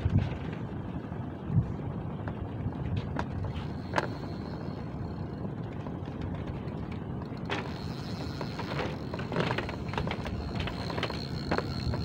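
Spinning reel's drag giving a steady high whine as a big fish pulls line against a hard-bent rod. The whine comes in faintly a few seconds in and is louder past the middle, with a few sharp clicks.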